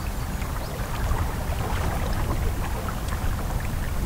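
Wind rumbling on the microphone over open river water, with many small scattered splashes and ticks of water lapping.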